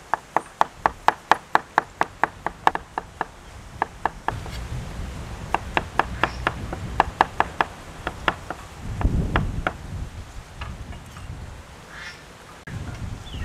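Large kitchen knife slicing a cucumber into rounds on a wooden cutting board: quick, even chops, about four or five a second, in two runs with a short pause between and a few scattered strikes near the end.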